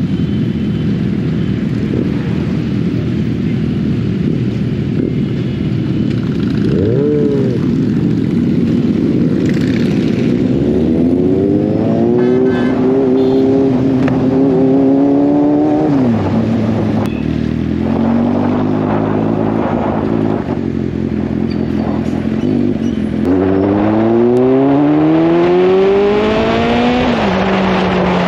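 Kawasaki Z800 inline-four engine heard from the rider's seat. It starts among the low rumble of other motorcycles, then accelerates hard twice, its pitch climbing through each pull, about halfway through and again near the end, and dropping sharply as the throttle closes.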